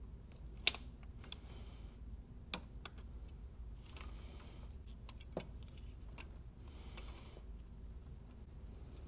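Hand tools and gloved hands working on coolant hoses and fittings in an engine bay: a handful of separate sharp metallic clicks, the loudest about a second in, and two brief scrapes.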